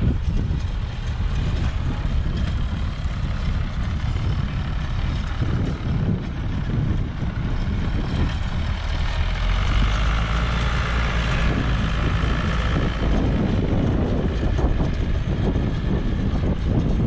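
A heavy diesel engine running steadily with a deep rumble. A higher whine comes in over it for a few seconds about halfway through.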